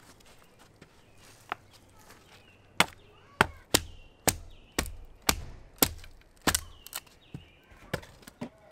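Hatchet chopping a piece of firewood into kindling: a couple of scattered sharp wooden knocks, then a steady run of strikes about two a second from roughly three seconds in.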